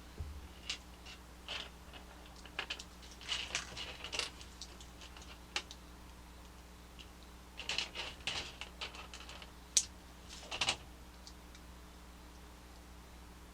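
Small plastic HexBug Junk Bots building pieces clicking and rattling as they are handled and sorted through, in scattered bursts, with one sharp click about three quarters of the way through.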